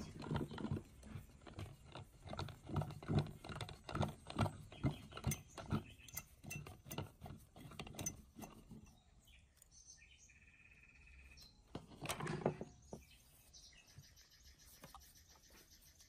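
Rusted steel housing of an old ceiling fan motor being twisted back and forth by hand on its seized shaft, grating and knocking about three times a second. It stops about nine seconds in, with one more short scrape near twelve seconds as the part comes free.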